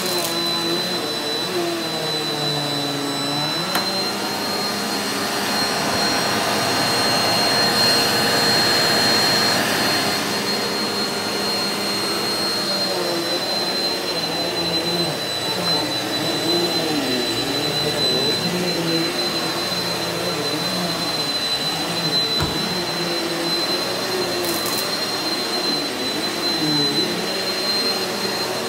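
Eureka NEU180B Power Speed bagless upright vacuum running over carpet, with a steady high motor whine and a lower hum that wavers up and down in pitch as it is pushed back and forth; a little louder about a quarter of the way in.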